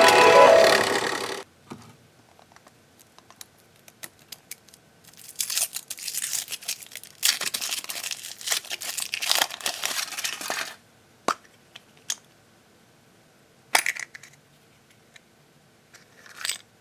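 Foil wrapper crinkling and tearing as a chocolate surprise egg is unwrapped, for about six seconds, followed by a few separate sharp clicks and taps. Background music ends about a second in.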